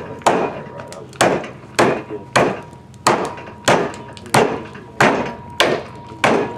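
Repeated chopping blows into the edge of a wooden 2x4 board, about ten sharp strikes at a steady pace, chipping a notch out of the wood.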